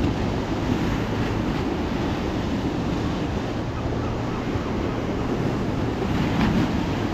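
Choppy sea surf washing and breaking up a stepped concrete sea wall, with wind buffeting the microphone. A wave surges a little louder about six seconds in.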